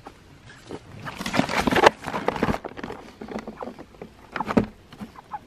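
A Freedom Ranger meat chicken flapping its wings and rustling its feathers while it is handled into a weighing basket. There is a longer flurry about a second in and a shorter one near the end.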